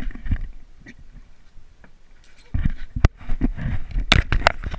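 Handling noise on a body-worn camera aboard a boat: a low wind rumble on the microphone, then a quieter stretch and a run of sharp knocks and clicks starting about halfway through.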